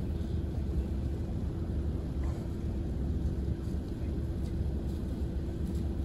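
Steady low rumble of an engine running, with a constant hum over it.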